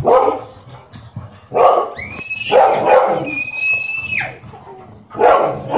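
Pet dog barking, with a long, high-pitched whine from about two seconds in: its agitated, protective reaction to a mock attack on a child.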